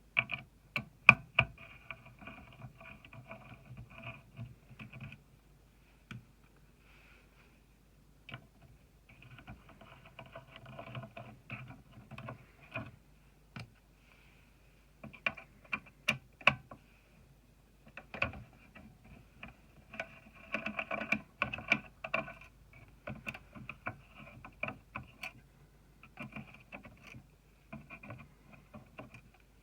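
Irregular small clicks, taps and handling rustle of hands working with computer parts on a motherboard, in stretches with short pauses between.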